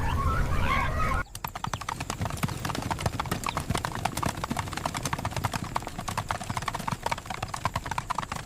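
Dense, irregular clatter of many hooves on hard ground from a migrating wildebeest herd on the move. It starts abruptly about a second in, after a low rumble with high warbling calls cuts off.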